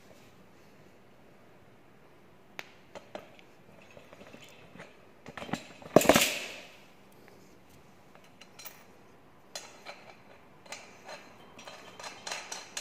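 Handling noise from a metal dump cart's wheel and axle: scattered light metallic clicks and clinks, with one loud knock about six seconds in that rings briefly.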